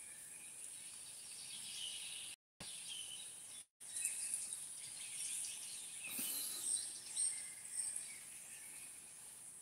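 Riverside ambience: birds chirping over a steady high hiss, with two brief dropouts to silence about two and a half and nearly four seconds in.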